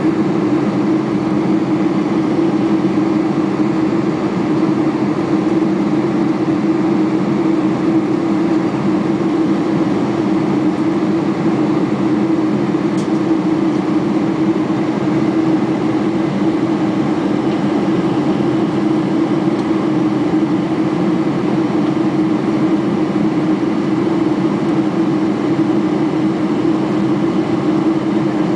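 Boeing 747-400 cabin noise in flight: a steady drone of engines and rushing air heard from a passenger seat, with a low hum running through it and no change in level.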